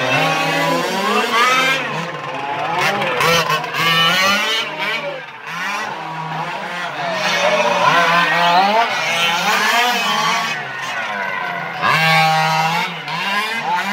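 Several 1:5-scale radio-controlled racing cars with small two-stroke petrol engines running together, their engines revving up and down in overlapping rising and falling whines as they accelerate and brake through the corners, loudest as a car passes close about 8 and 12 seconds in.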